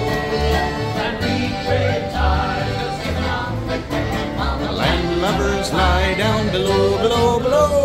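Live folk band playing a sea shanty, with singing over a steady low beat about twice a second.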